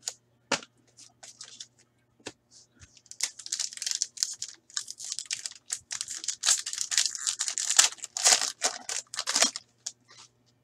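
The foil wrapper of a hockey trading-card pack being torn open and crinkled by hand. A few light clicks come first, then a dense run of crackling rustles from about three seconds in until near the end.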